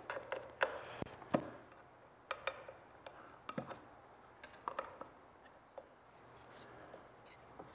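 Paint being stirred in a metal can with a stick: scattered light clicks and taps of the stick against the tin.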